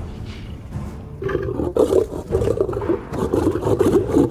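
Young male lions snarling and growling in a scuffle over a kill. The growling is quieter at first and turns loud and continuous about a second in.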